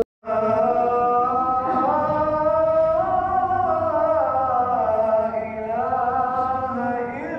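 A man's voice chanting a long melodic religious recitation in the mosque after the prayer, in held notes that glide up and down. It cuts in after a momentary silence at the very start.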